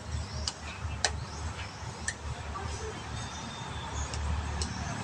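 Light clicks and taps of small kitchen utensils, a handful spread about a second apart, over a low steady rumble.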